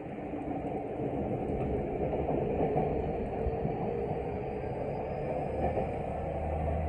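Running sound inside a Tokyu 5050-series electric train car: a steady rumble of wheels on rail and the car body. A faint high whine rises in pitch about halfway through.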